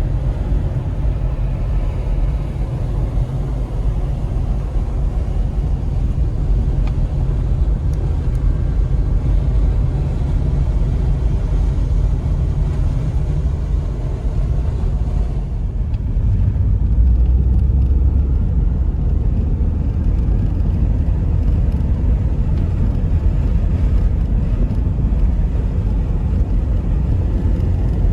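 Mitsubishi Galant VR4 (turbocharged 2.0-litre four-cylinder) driving along a country road: a steady low engine and road rumble. About halfway through, the higher-pitched noise falls away and the low rumble grows louder.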